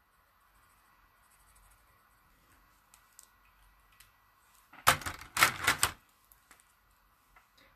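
Plastic felt-tip pens clicking and clattering: a quick run of sharp clicks lasting about a second, starting about five seconds in, as a pen is capped and put down among the others and another picked up.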